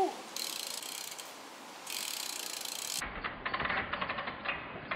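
BMX bike's rear hub freewheel ratchet clicking rapidly as the wheel spins freely, after a steady hiss in the first three seconds.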